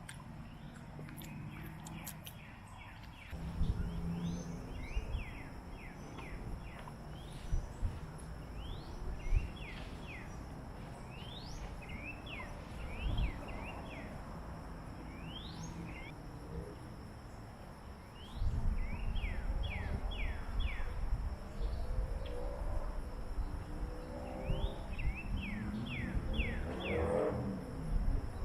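Small birds calling outdoors with short, quickly falling chirps, often several in a quick run. Under them is a close, low rumbling noise that grows louder about two-thirds of the way through.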